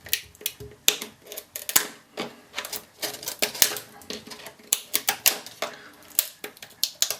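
Hard plastic clicking and clacking as a laptop battery pack's casing and the cells inside it are handled and pried apart: a run of sharp, irregular clicks, a few each second.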